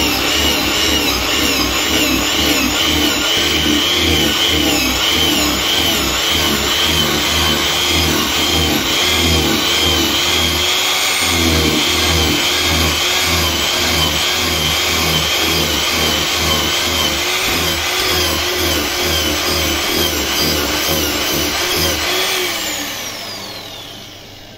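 Angle grinder with a toothed wood-carving disc hollowing out a damp cherry-wood blank. Its motor whine wavers as the disc bites into the wood and eases off in repeated passes, and the damp wood clogs the disc. Near the end the grinder is switched off and its whine falls as it spins down.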